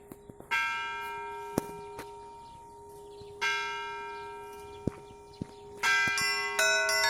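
Russian Orthodox church bells rung by hand: a bell is struck twice, about three seconds apart, each stroke ringing on and fading over a steady low hum from a larger bell. Near the end several smaller bells join in quick succession, starting a fuller peal.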